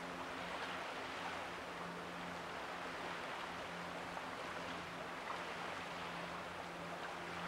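Faint, steady sea ambience: an even wash of water noise over open, rippling sea, with a low steady hum underneath.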